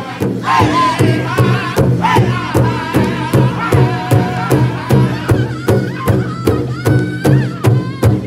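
Powwow drum group: several men striking one large hide-covered drum together in a steady beat, about two strokes a second, while singing together in high, wavering voices.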